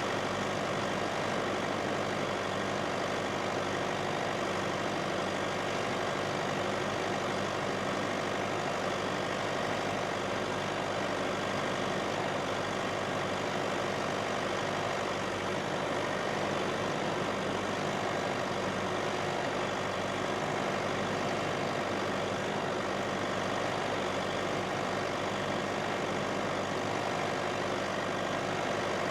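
Massey Ferguson tractor's diesel engine running steadily while pulling a plough, with no change in pitch or loudness.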